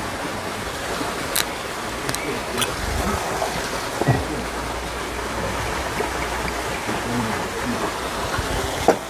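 Steady rush of a nearby stream, with a few sharp clicks and knocks from a green glass soju bottle being handled and poured into a shot glass.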